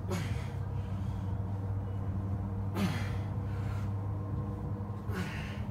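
A man's hard exhales, three in about five seconds, one with each rep of a single-arm resistance band chest fly: breathing under exertion. A steady low hum runs underneath.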